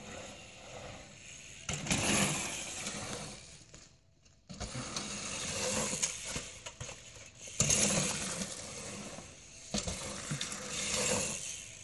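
A BMX bike riding dirt jumps: its tyres rolling on packed dirt and the bike taking off and landing. The rough noise jumps up suddenly a few times.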